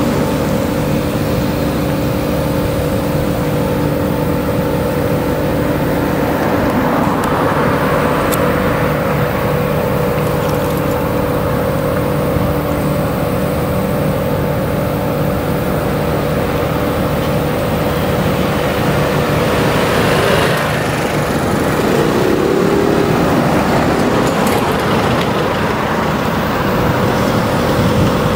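Diesel farm tractors working maize silage on the clamp, a steady engine drone under load as they push and compact the pile. The sound shifts about two-thirds of the way through as a second tractor comes onto the clamp.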